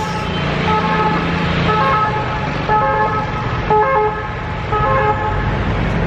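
Ambulance siren sounding a two-tone call, its steady tones stepping back and forth between a lower and a higher pitch, over the hum of street traffic.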